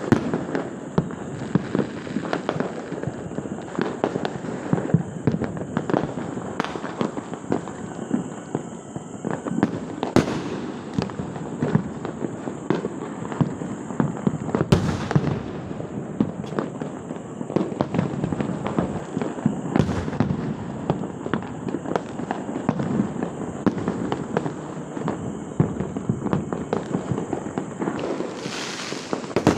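Many fireworks and firecrackers going off on all sides: a dense, continuous crackle of small pops, with a few louder sharp bangs about ten, fifteen and twenty seconds in, and a hiss near the end.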